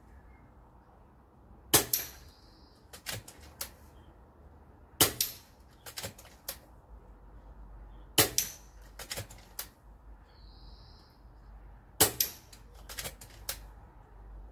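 FX Dreamline .22 PCP air rifle firing four shots, roughly three seconds apart. Each shot is a sharp crack with a quick second strike close behind it as the pellet hits the metal knock-down targets. Quieter clicks come between the shots.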